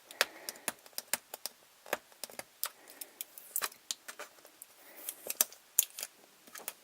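Plastic toy surprise egg and its taped packaging being handled and pried open by hand: a string of small, irregular sharp clicks and crackles.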